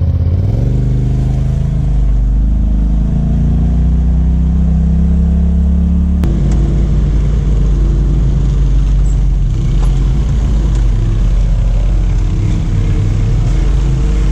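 Side-by-side UTV engine running at low trail speed, its pitch climbing slowly over the first few seconds. About six seconds in, the sound cuts abruptly to another side-by-side's engine running steadily.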